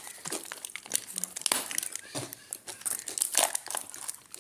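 Irregular crinkling and rustling of handled wrapping, with many small crackles and a few louder rustles about a second and a half in and again around three and a half seconds in.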